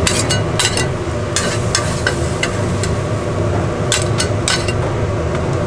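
Metal spatulas clinking and scraping on a hot iron pan while gopchang (beef intestines) are stir-fried: a dozen or so sharp, irregular clinks over a steady low hum.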